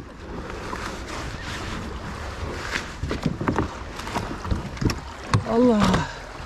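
Water sloshing around a fishing kayak, with wind on the microphone and a scatter of sharp knocks and clatter in the middle. Near the end a man's voice exclaims 'Allah' once, falling in pitch.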